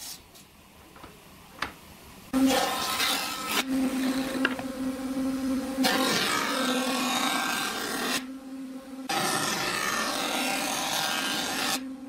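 Taiyo jointer planing a wooden board: a steady machine hum under a harsh cutting noise as the board is fed over the cutterhead. It starts abruptly about two seconds in, drops away for about a second in the middle, then resumes until near the end.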